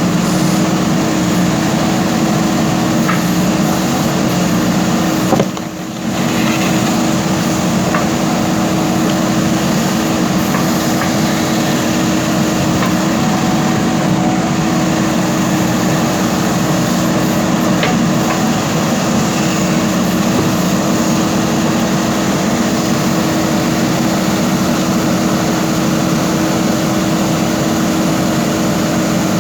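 JCB backhoe loader's diesel engine running steadily under work, with a strong even hum. The sound dips briefly about five and a half seconds in.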